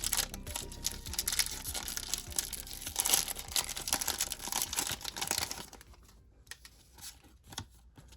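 Foil wrapper of a Pokémon TCG booster pack crinkling as it is torn open by hand, dense crackling for about five and a half seconds, then a few faint rustles as the cards come out.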